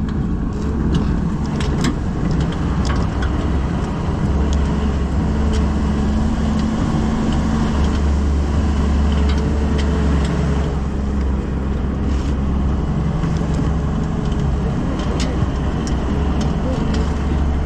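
Truck engine running with road noise, a steady low drone, with a few scattered sharp clicks.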